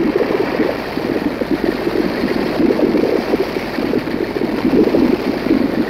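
Helicopter noise heard from on board: a loud, steady engine and rotor drone with wind rushing over the microphone.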